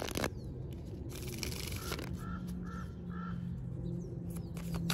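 A crow cawing three times, about half a second apart, a little past the middle. Playing cards being shuffled and handled give a rustle at the start and quick clicks near the end.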